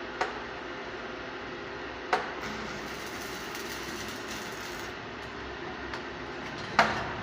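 Steady hiss of arc welding, with three sharp metallic knocks, the last near the end the loudest.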